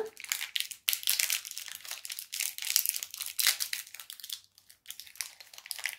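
Small candy wrapper crinkling and tearing as it is picked open by hand: a fast, irregular crackle of sharp little clicks.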